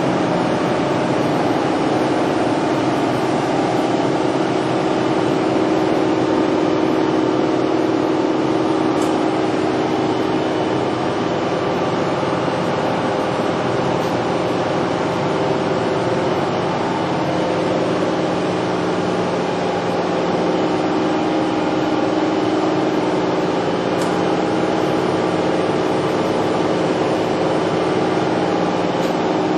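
Toshiba MPF-2114C bridge-type vertical machining center running: a steady mechanical hum with several held tones over a constant whirr.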